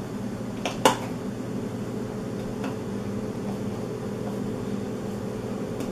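A steady low hum in the room, with a sharp double click just under a second in and a faint tick or two later, as a screwdriver works a screw into a plastic elliptical pedal.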